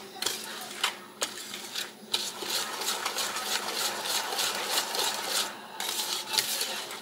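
Wire whisk beating liquid pecan pie filling in a ceramic bowl: rapid, steady clicking and scraping of the tines against the bowl, with a few brief pauses.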